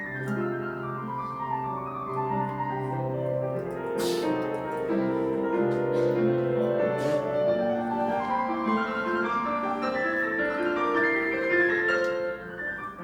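Piano playing classical music in a steady flow of notes, with a low bass note held under the first half.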